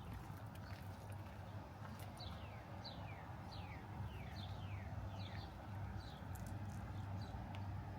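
A songbird singing a series of quick, clear whistled notes, each sliding downward in pitch, about two or three a second for several seconds. A low, steady background hum runs underneath.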